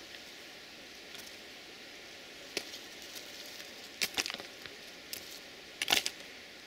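Dry autumn leaves dropping onto the railway ballast and rails, making a few sharp crackles over a steady hiss. The crackles come once, then in a cluster, and loudest near the end as a flurry of leaves lands.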